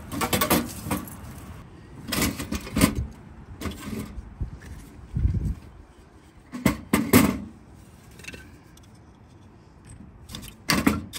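Split kindling sticks being laid into the metal firebox of a Danchel T6 titanium tent wood stove, clacking against the firebox floor and walls and against each other in several short bursts. One duller thump comes about five seconds in.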